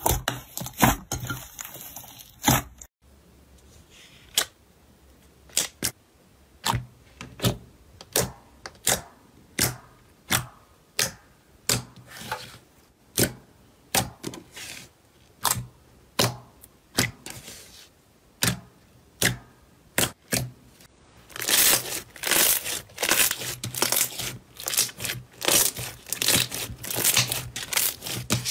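Crisp crackles and pops from slime being handled: single sharp snaps about once or twice a second, then a denser run of crackling from about 21 seconds in.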